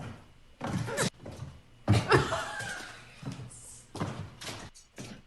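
A few thuds and knocks mixed with short, pitched yelps or calls, from the soundtrack of a pet video clip.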